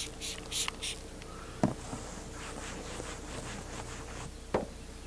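A trigger spray bottle of all-purpose cleaner gives a few quick spritzes within the first second. Then a rag rubs over the fiberglass roof, with soft wiping sounds and a couple of light knocks.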